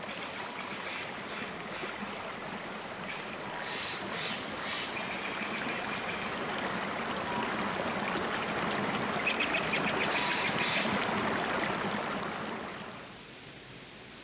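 Fast-flowing stream rushing over rocks, a steady wash of water that fades out near the end.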